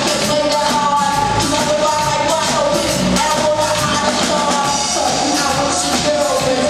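A live band playing a rock-styled song at full volume, with a lead voice singing held, sliding melody lines over steady drums.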